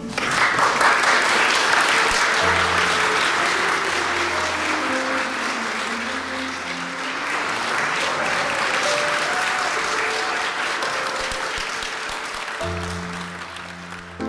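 Guests applauding for the newlyweds, starting suddenly and fading away gradually toward the end, over soft background music.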